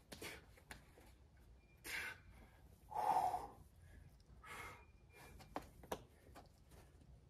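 A boulderer's short, sharp breaths and hard exhales while climbing. The loudest is a forceful, voiced exhale about three seconds in, and two short clicks come about six seconds in.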